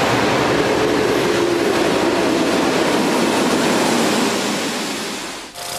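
A diesel-hauled passenger train going by, the locomotive followed by its coaches, with a steady rushing rumble of wheels on rail. It eases off in the last second and breaks off abruptly near the end.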